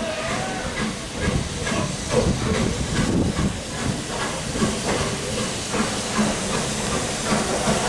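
BR Standard class 9F two-cylinder 2-10-0 steam locomotive No. 92214 approaching with its train: steam hissing over a regular beat of about two strokes a second.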